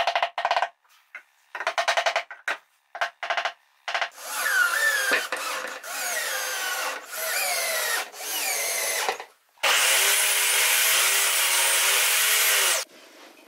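Cordless screwdriver driving screws into pine boards: short trigger bursts at first, then three longer runs whose pitch drops as each screw draws tight. Near the end a table saw cuts through a pine board for about three seconds.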